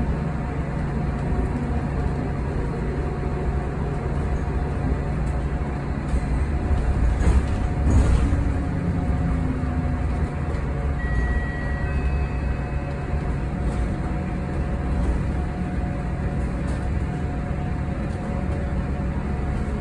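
Inside a Yutong ZK6128BEVG battery-electric city bus on the move: a steady low road and tyre rumble with a faint steady whine from the electric drive. It swells louder for a moment about seven to eight seconds in.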